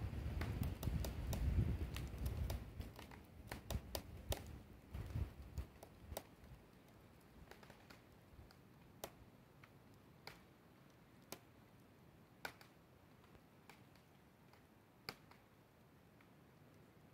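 Frozen trees cracking in deep cold as they sway: a run of sharp snaps and pops, many close together in the first half, then roughly one a second. Wind rumbles on the microphone for the first few seconds.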